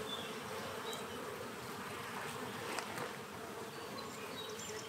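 Honey bees buzzing in a steady hum around an open hive whose brood frames are lifted out.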